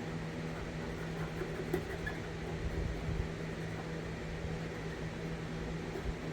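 Steady mechanical hum with one constant low tone: a fan-type machine running.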